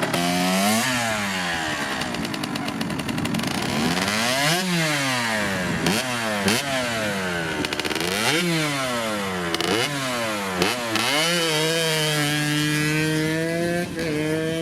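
2008 KTM 144SX's 144 cc single-cylinder two-stroke engine, freshly rebuilt, being revved up and down sharply several times, then held at a steadier pitch for the last few seconds.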